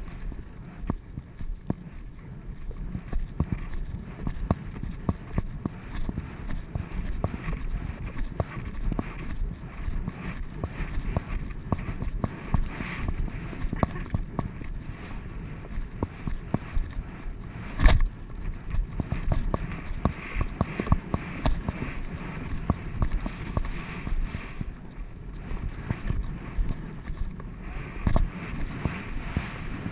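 A horse's hoofbeats on a dirt track, with thuds, tack and case rattles and wind buffeting, heard muffled through a GoPro's case on the moving rider. One much louder thump comes a little past halfway.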